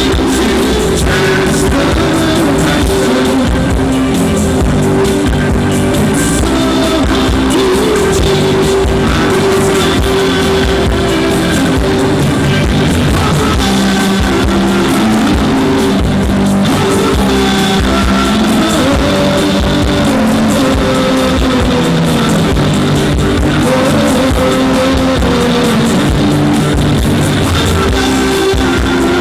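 1980s new wave band playing a rock song live through a PA, with electric guitar, bass and drums and singing over them.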